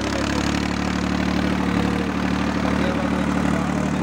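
Escort tractor's diesel engine running steadily while it pulls a tillage implement through the field.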